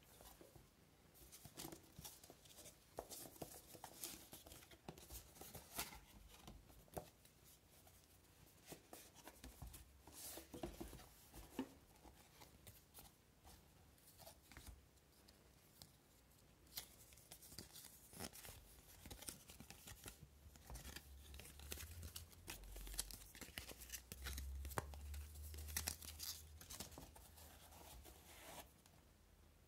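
Faint rustling, scraping and light tapping as a cardboard watch box, its paper card and inner case are handled and opened by hand, with a few soft low thumps against the table during the second half.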